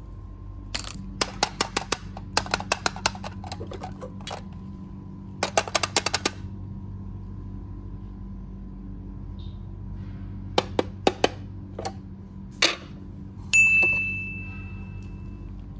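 Hard plastic toys and containers clicking and tapping as they are handled, in quick runs of sharp clicks, then scattered single clicks. Near the end comes one louder clack with a short ringing ding.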